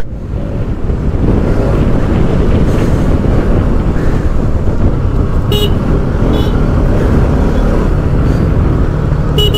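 Riding a motorcycle in traffic: steady wind rush and engine rumble on the microphone, with short horn beeps about halfway through and again near the end.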